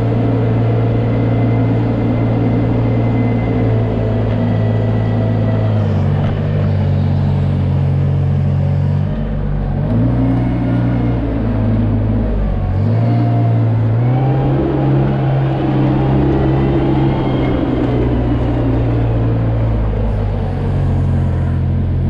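Small loader's engine running steadily under load, its pitch shifting a few times, as it pushes a scraper blade through manure slurry along a slatted barn floor.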